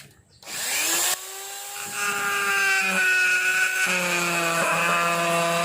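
iNGCO mini grinder (rotary tool) driving its bit through a flexible shaft extension: it spins up with a rising whine about half a second in, then runs steadily, the bit worked against wood, and stops near the end.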